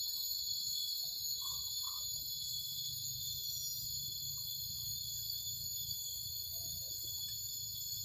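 Steady chorus of crickets and other night insects: several high-pitched trills overlapping without a break, over a faint low hum.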